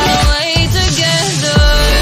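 Electronic pop song with no vocals here: the bass and beat drop out briefly, then heavy bass and drums come back in about one and a half seconds in.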